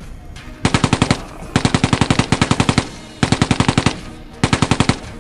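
Battery-powered toy sniper rifle playing its electronic machine-gun sound effect in four rapid-fire bursts, each a fast even rattle of about sixteen shots a second. The second burst is the longest, at well over a second.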